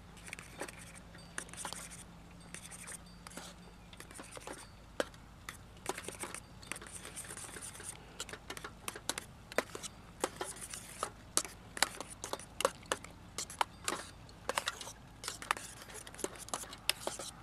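Spoon stirring thick instant mashed potatoes in a stainless steel pot: irregular scraping and clicking of the spoon against the pot's sides and bottom, getting busier after the first few seconds.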